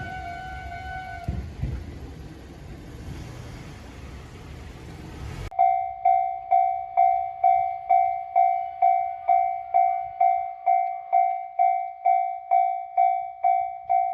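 A train rumbling past, fading over about five seconds. Then a sudden switch to a Japanese railway level-crossing alarm ringing its "kan-kan" tone, about two strokes a second, loud and clean.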